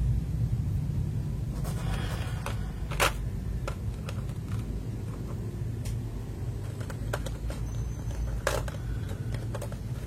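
Plastic PBT keycaps clacking: about eight short, sharp clicks at uneven intervals, the loudest about three seconds in and near the end. A steady low hum runs underneath.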